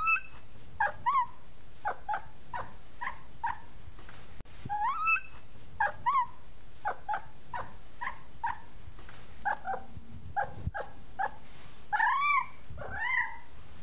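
A kitten mewing over and over: short, high-pitched mews about two a second, with a few longer ones that rise and fall in pitch near the start, in the middle and near the end.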